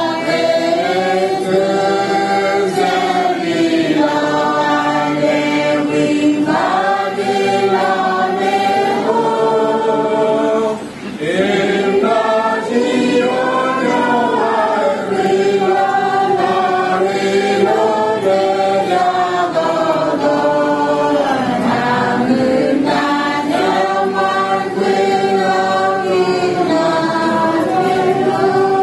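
A group of mourners singing a hymn together without accompaniment, phrase after phrase, with two short pauses for breath.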